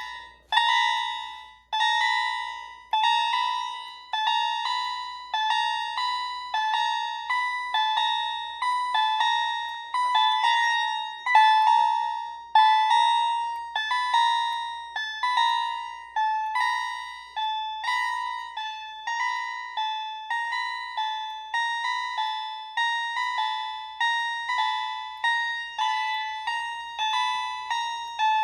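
Three Wheelock electronic fire alarm chimes, a CH70 and two CH90s tuned slightly higher and lower, sounding together. Their repeated struck-bell tones overlap at slightly different pitches. The strikes come about a second apart at first and closer together later on, as the units fall out of step.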